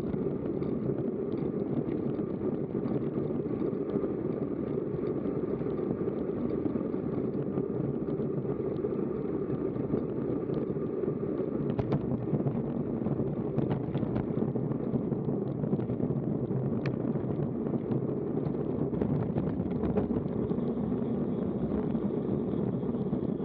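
Steady rush of wind on an action camera's microphone on a moving time-trial bike, with road noise beneath and a few light clicks in the middle.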